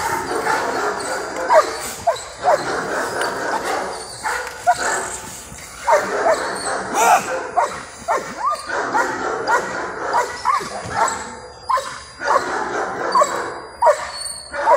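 German Shepherd barking in short, high-pitched barks at an irregular pace, agitated and switched on by a decoy provoking it during protection training.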